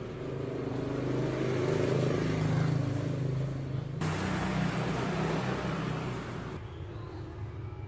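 A motor vehicle's engine running, a steady low hum that grows louder over the first two to three seconds and then eases off.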